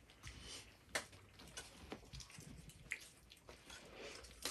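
Faint mealtime handling sounds: a few light clicks of cutlery against dishes and rustling of flatbread.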